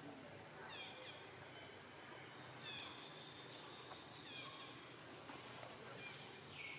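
Faint, high-pitched cries of a long-tailed macaque: short falling squeals every second or two, with one longer held cry near the middle.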